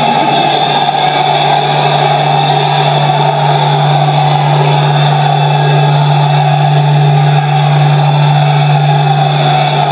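Continuous clamour of many legislators shouting in an assembly chamber, with a steady low hum running under it.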